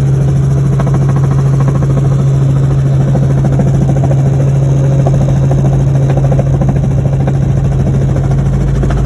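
Helicopter in flight heard from inside the cabin: a loud, steady engine and rotor drone with a deep hum and fast, even rotor pulsing.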